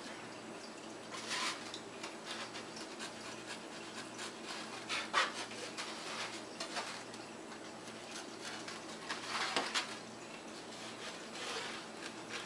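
Intermittent rustling and rubbing of a sheet of wax paper and a thin foam wing panel being handled on a tabletop, with a few brief louder rustles.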